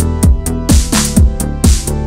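Background electronic dance music with a steady kick drum about two beats a second and hi-hats between the beats.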